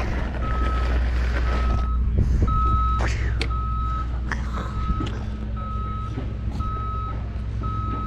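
A construction machine's backup alarm beeping steadily, about once a second, over the low rumble of a diesel engine. A few sharp knocks of work on the site sound in the middle.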